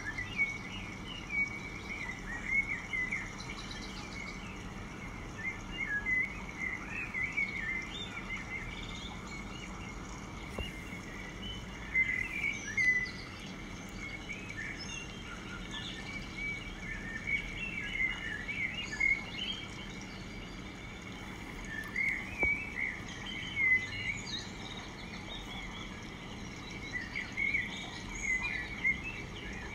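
Birds chirping: many short, high chirps in clusters every second or two, over a steady low background hum.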